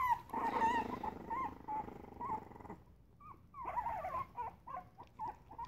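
Boston terrier puppies whimpering and squeaking in many short, high cries, with a low rough grumble during the first couple of seconds.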